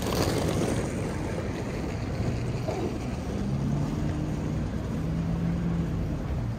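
Low, steady rumble of street traffic or a passing vehicle. From about halfway a low hum joins it, holding a few steady pitches that shift in small steps.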